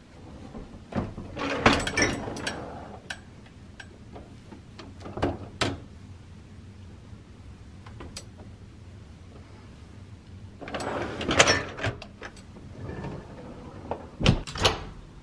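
Dishwasher racks rattling as they slide on their rails, with a few light clicks from the cutlery basket, then the dishwasher door shutting with two sharp knocks near the end.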